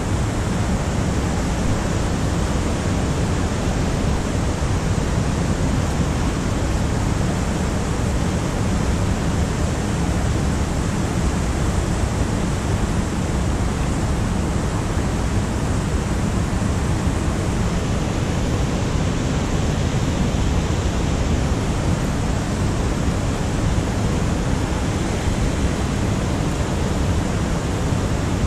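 Fast-flowing trout stream rushing over rocks and riffles: a steady, unbroken wash of moving water.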